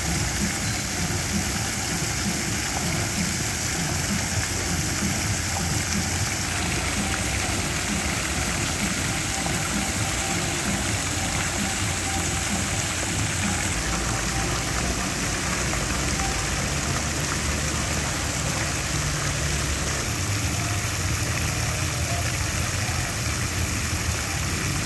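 Fountain jets splashing steadily into a stone basin, a continuous hiss of falling water, with a low traffic rumble underneath.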